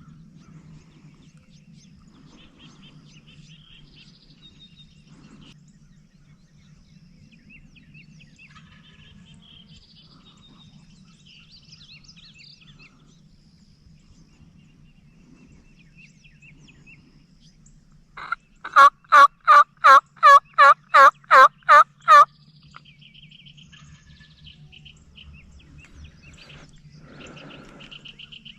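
A run of about a dozen loud, evenly spaced turkey yelps, about three a second, starting past the middle and lasting some four seconds. Faint small-bird chirps sound throughout.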